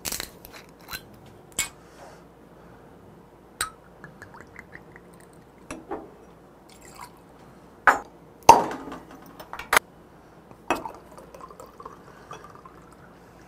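Green glass soju bottle twisted open with a click, then glass bottles and a drinking glass knocking and clinking on the table, with a short gurgling pour about four seconds in. Near the end beer is poured from a glass bottle into a glass.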